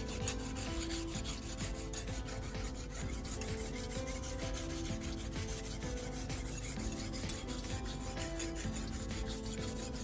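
Kitchen knife blade scraped across wet 400-grit sandpaper in quick, even, repeated strokes: a steady rasping grind as the edge is sharpened.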